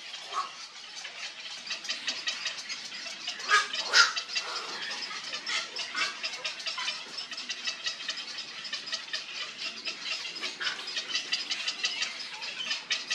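Birds at a heron nesting colony calling in a dense, rapid clicking chatter, with a louder burst of calls about four seconds in.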